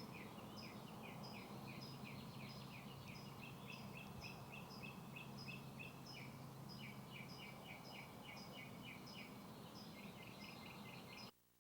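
Birds chirping in a fast, steady run of short high calls over a low hum, cutting off suddenly near the end.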